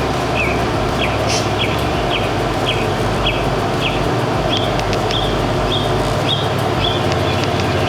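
A songbird singing a run of short, clear whistled notes about twice a second, down-slurred at first and flatter and higher from about halfway in, over a steady background noise.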